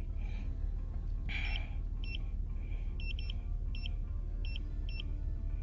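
Keypad beeps of a handheld Autophix OM126 OBD2 code reader: a series of short, high beeps at uneven spacing, some in quick pairs, as its buttons are pressed to move through the menus. A steady low hum runs underneath.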